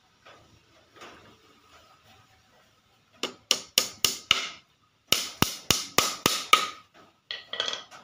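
Small hammer driving a nail through a thin wooden slat into a wooden cage post: a run of about five quick taps, a short pause, then about seven more. A brief clatter follows near the end.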